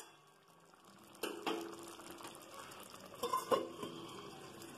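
Chicken and potato curry sizzling and simmering in a kadai, a steady hiss that starts about a second in, with a few clinks of cookware against the pan.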